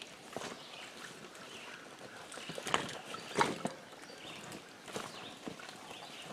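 A bicycle and its towed trailer being pushed through a shallow rocky creek: water splashing and wheels and boots knocking on stones, with a couple of sharp knocks around three seconds in.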